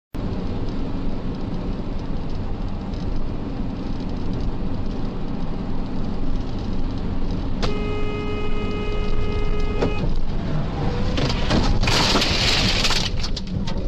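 Steady road and engine noise from inside a semi-truck's cab. A horn blares for about two seconds some eight seconds in, then a crash and a loud rush of scraping and flying debris peak about twelve seconds in.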